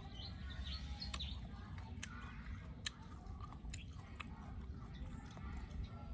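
Poultry calling in short, faint calls over a steady high-pitched whine that stops near the end, with a few sharp clicks.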